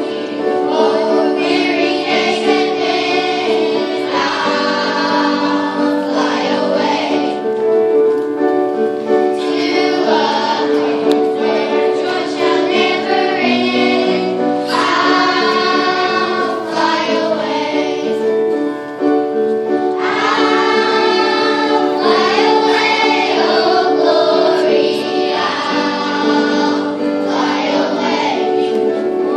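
Children's choir singing a gospel song.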